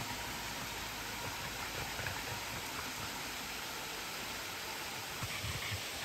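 Steady rushing hiss of a waterfall, with a few soft low thumps near the end.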